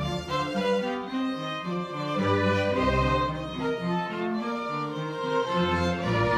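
A string orchestra of violins and lower strings playing live, a melody moving over changing bass notes.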